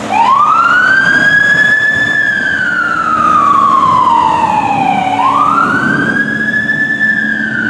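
Fire engine siren wailing: a quick rise to a high pitch, a long slow fall, then a second rise about five seconds in, with the truck's engine running underneath.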